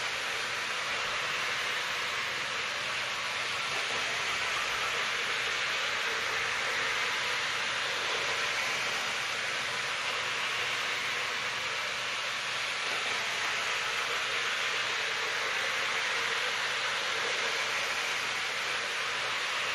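Two H0 model trains from a Piko digital (DCC) start set running on sectional track: a steady whirring hiss of small motors and wheels rolling on the rails, even throughout.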